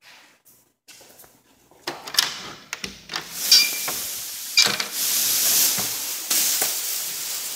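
A door being handled: knocks and a short squeak, followed by a steady rushing noise.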